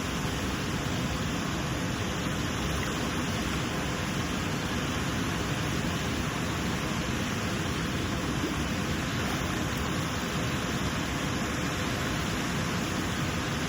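River water rushing over a waterfall: a steady, even roar of falling water that does not change.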